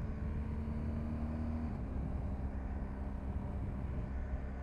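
BMW R 1250 GS boxer-twin engine running steadily under way, with road noise. The engine note falls a little about two seconds in.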